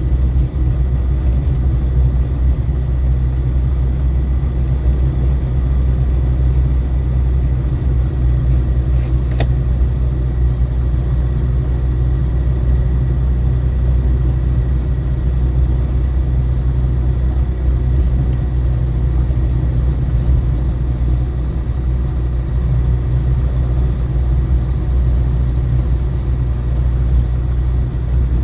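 Rotax 912 four-cylinder engine of a PS-28 Cruiser light aircraft turning its propeller at low taxi power, a steady drone heard from inside the cockpit. A single short click about nine seconds in.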